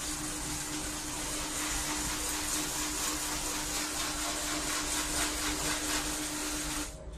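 ATM cash dispenser counting out banknotes inside the machine: a steady mechanical whirring with a constant hum under it, cutting off just before the end.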